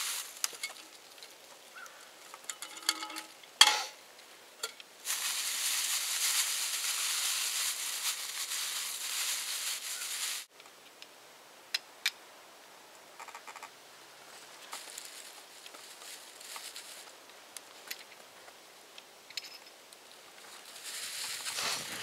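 Dry grass tinder bundle rustling and crackling as it is handled and worked in the hands. The crackling comes in stretches, the longest about five seconds, with a sharp click a few seconds in and scattered small ticks later.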